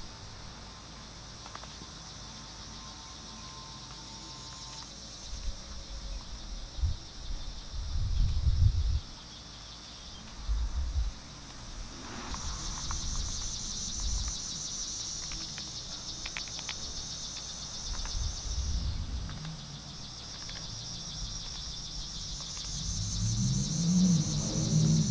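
Insects buzzing in a steady high band that comes in about halfway through and again near the end. Low gusts of wind rumble on the microphone, loudest about a third of the way in.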